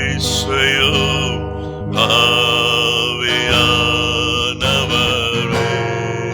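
Slow worship music with long held chords.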